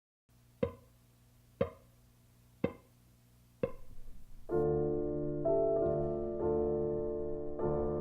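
Four sharp knocks, evenly spaced about a second apart, each with a short ringing decay. Then soft piano music comes in just before halfway and carries on with held chords.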